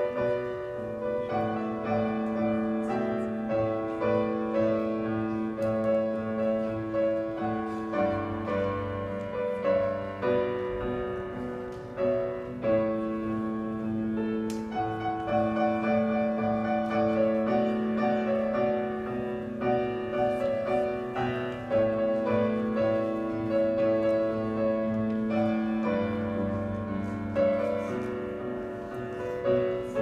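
Solo grand piano played live, a slow piece of sustained chords over a steady low note, the chords changing every second or two.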